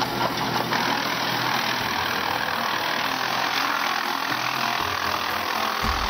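Tow-behind wood chipper running and chewing up bamboo poles: a loud, steady mechanical noise without breaks.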